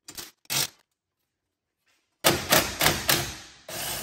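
Cordless Porter-Cable impact driver with a 10 mm socket hammering in short clattering bursts as it spins out the wheel's dust-shield bolts. Two quick bursts, then silence for over a second, then several more bursts close together.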